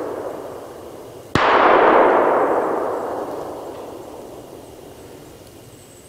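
Gunshots during a deer hunt: the echo of one shot is fading out, then about a second and a half in a second, louder shot cracks and rolls away in a long echo through the woods over several seconds.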